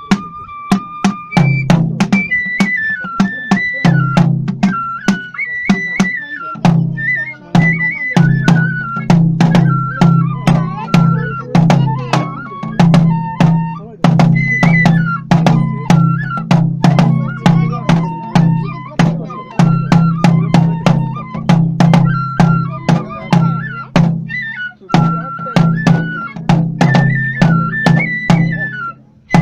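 Live Japanese kagura festival music: a taiko drum struck in a quick, steady rhythm under a high flute melody that steps up and down.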